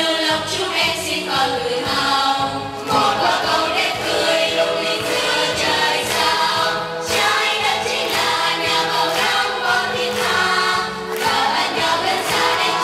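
School choir singing in parts, phrase after phrase, with brief pauses between phrases about three seconds in and near the end.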